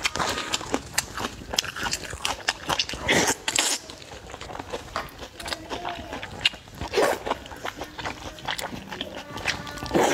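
Close-miked slurping and chewing of thick noodles: many short wet mouth clicks and smacks, with longer slurps about three seconds in, around seven seconds, and at the very end.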